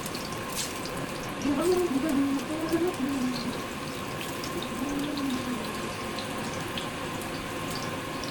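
Plantain slices frying in shallow oil in a pan: a steady sizzle with small scattered pops.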